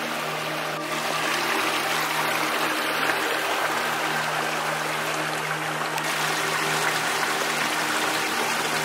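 Steady rushing noise of flowing water, with a faint low steady hum underneath.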